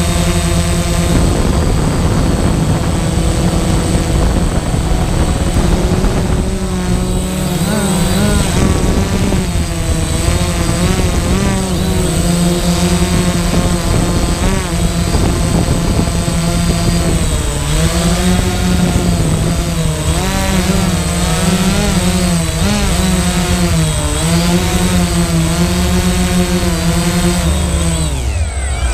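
DJI Phantom quadcopter's motors and propellers buzzing close to the GoPro mounted on it, with a steady high whine above. The pitch wavers up and down as the drone manoeuvres, and near the end the motors wind down and fall in pitch.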